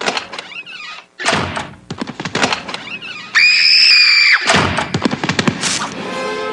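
Cartoon sound effects of an off-screen commotion: a rapid run of thumps, knocks and clatters, with a high, steady squeal lasting about a second midway through.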